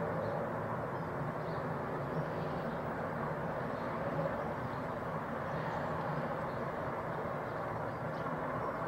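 Steam-hauled train running past with a steady rumble, behind the Peppercorn A1 Pacific steam locomotive 60163 Tornado.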